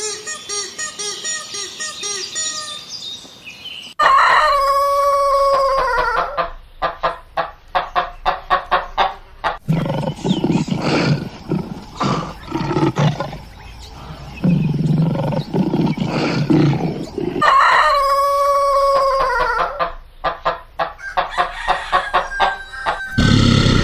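Chickens clucking in quick runs, with a rooster crowing twice, several seconds apart. A stretch of lower-pitched animal calls fills the middle.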